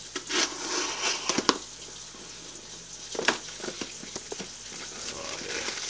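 A cardboard shipping box being handled and torn open by hand: crinkling and rustling of cardboard and packing material, with a few sharp snaps, the loudest about a second and a half in and another about three seconds in.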